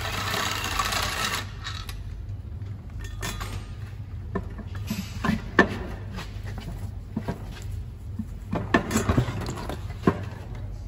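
Workshop sounds of a gearbox being unbolted and freed. A tool runs briefly for the first second and a half. Then come scattered, irregular metal knocks, clicks and clanks, over a steady low hum.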